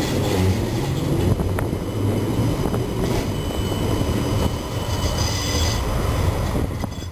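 Siemens Combino Supra low-floor tram running along its rails, heard from on board: a steady low rumble of wheels and running gear, with a thin high wheel squeal in the middle as it takes a curve.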